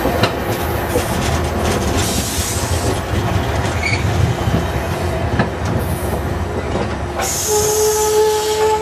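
Amtrak passenger cars rolling past at close range: a steady rumble of steel wheels on rail, with the odd clack over rail joints. Near the end a steady, high-pitched wheel squeal starts.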